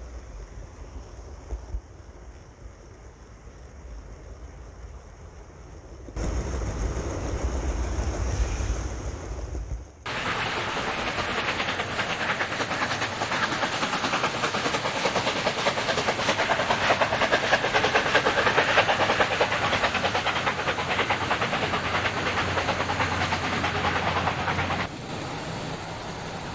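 DC-run OO gauge model trains running on the track. At first a low rumble, then from about ten seconds in a dense, fast clatter of wheels over the rail, which drops away near the end.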